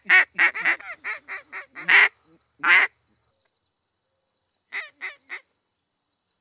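A hunter's duck call blown in a quick run of about ten loud, raspy quacks over three seconds, then three more about five seconds in, calling to a passing flock of ducks to bring it down to the decoys. A steady insect buzz runs underneath.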